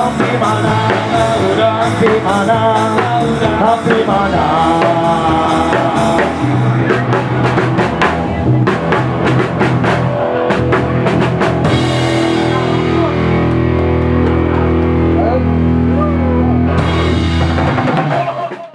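Live rock band playing the end of a song: vocals over drum kit, bass and electric guitars for the first few seconds, then a run of drum and cymbal hits, and a long held final chord that dies away at the very end.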